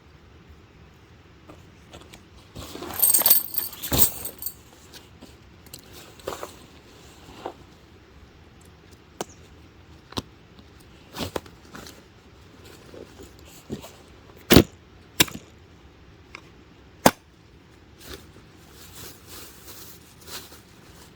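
Scattered clicks and knocks of camping gear being handled, with a short burst of metallic jingling about three seconds in and a few sharper knocks later on.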